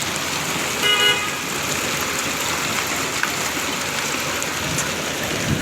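Steady rain falling, with one short vehicle horn toot about a second in.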